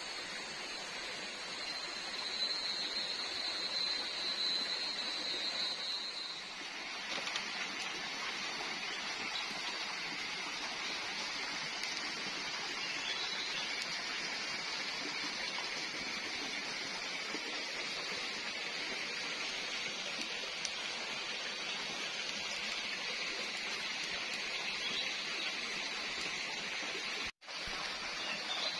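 Rainforest ambience: a steady rushing hiss like a running stream. For the first six seconds or so a steady high-pitched tone rides over it, then the sound changes abruptly. Near the end it cuts out for an instant.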